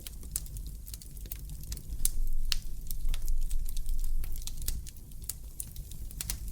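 Wood fire crackling in a fireplace: scattered sharp pops and snaps over a low rumble of flame, the rumble growing louder about two seconds in for a couple of seconds.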